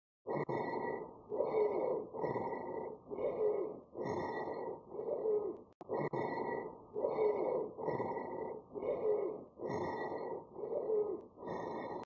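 Rhonchi, a low-pitched monophonic wheeze, in the lungs heard through a stethoscope: a low whistling whine with the breath sounds, repeating about once a second. It is an abnormal continuous breath sound.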